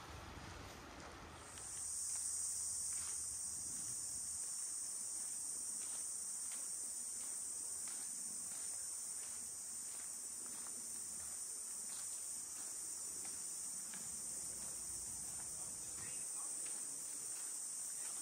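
Wind and water noise for the first second and a half, then a steady high-pitched drone of insects in the trees. Faint footsteps on a sandy path tick along at a walking pace.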